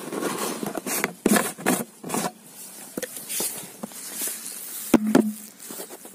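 Handling noise: irregular scrapes and light knocks around a clear plastic jar on sandy ground, with footsteps.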